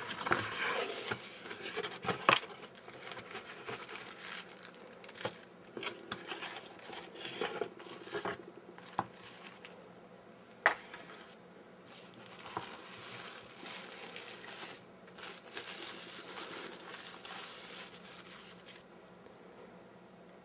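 Cardboard box and plastic packaging being handled and opened: irregular crinkling, rustling and tearing, with scattered sharp clicks and knocks. It dies down about two seconds before the end.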